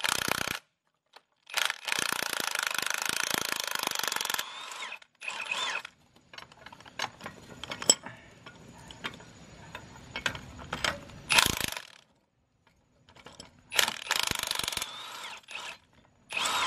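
Milwaukee cordless impact wrench hammering in bursts on the threaded rods of a coil spring compressor on a car strut: one long burst of about three seconds shortly after the start, then several shorter bursts. Between them come scattered metal clicks and clinks from the compressor and spring being handled.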